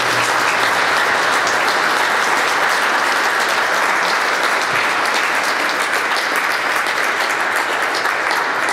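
Large seated audience applauding, a dense, steady clapping that holds its level throughout.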